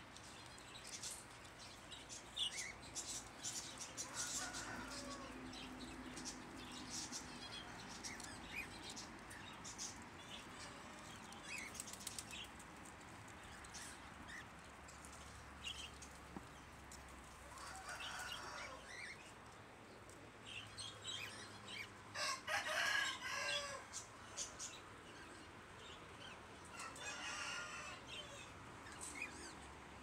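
Aviary birds flapping their wings in several short bursts amid scattered clicks and rustles, the loudest burst about two-thirds of the way through.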